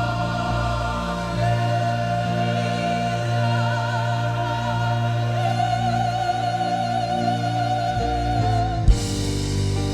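Church choir singing long held notes with vibrato over a sustained low accompaniment. About nine seconds in there is a sharp knock and the sound changes abruptly.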